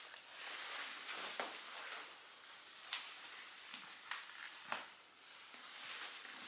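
Soft rustling of a long woven trench coat as it is moved and swung, with a few light taps of footsteps on stairs about three to five seconds in.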